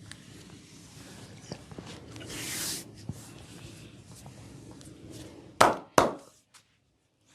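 Hands working over skin during a massage, with a brief hiss about two seconds in. Near the end come two loud sharp smacks close together, then the sound drops away to silence.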